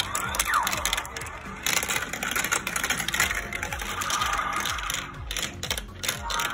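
Background music with a steady repeating beat, over marbles clicking and rattling as they roll through a plastic marble run.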